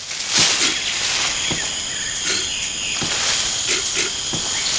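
Steady high-pitched insect chorus, with four dull thumps spread about a second apart.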